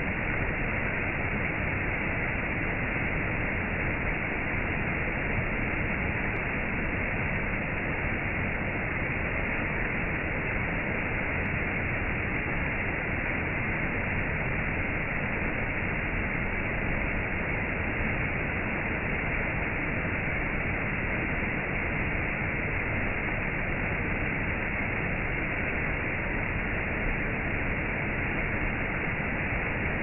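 Waterfall: a steady, unbroken rush of falling water. It sounds dull and muffled, with no high hiss.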